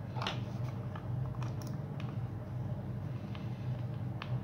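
Scattered light clicks and taps as a small plastic nitro-engine fuel tank and its metal cap fitting are handled, with a screwdriver at the fitting near the end, over a steady low hum.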